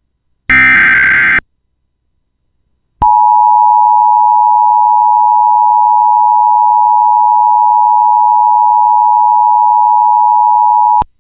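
Emergency Alert System broadcast tones: a short burst of digital SAME header data tones about half a second in, then, after a second and a half of silence, the steady two-tone EAS attention signal held for about eight seconds and stopping abruptly just before the end.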